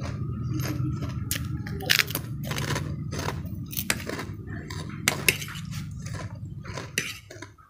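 Close-up crunching of a fried krupuk cracker being bitten and chewed, as sharp crackling clicks. Near the middle, a metal fork clinks and scrapes on a ceramic plate while noodles are forked up. A steady low hum runs underneath.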